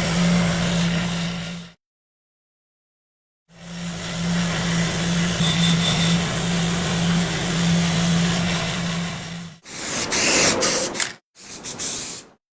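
An electric power tool running with a steady hum and an abrasive hiss, in short clips cut apart by silent gaps. About ten seconds in comes a louder, harsher stretch of grinding.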